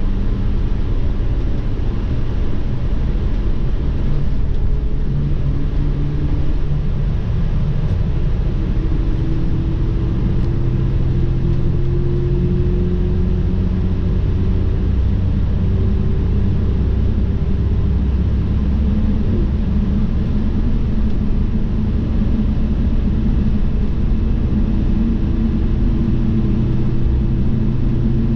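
Steady drone of a highway coach bus at speed, heard from inside the cabin: road and tyre rumble with an engine hum that slowly shifts in pitch.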